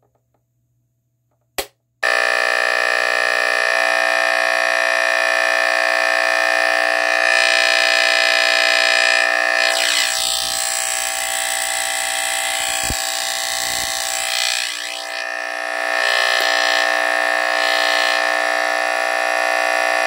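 Vintage Emhart Kwikset 357 (Pyrotector Smoke Sentinel) smoke detector's mechanical vibratory horn buzzing on straight 120 V AC, a steady 60-hertz smoke-detector buzz with many overtones. It starts about two seconds in, just after a single click. Midway there are knocks and shifts in the tone as the unit is picked up and turned over.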